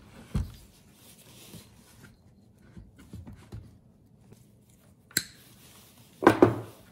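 Handling knocks from a Homelite Super 2 chainsaw's engine and plastic housing as gloved hands move them: a thump, a few soft taps, a single sharp click, then a louder clatter of two or three knocks near the end.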